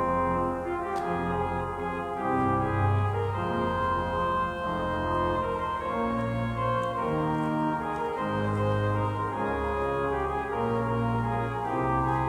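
Organ playing slow, sustained chords over a moving bass line, in the manner of a service prelude.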